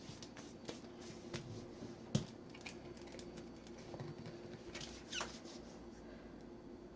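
Light kitchen handling sounds: scattered small clicks and taps, a sharper knock about two seconds in, and a brief scrape near the five-second mark, over a faint steady hum.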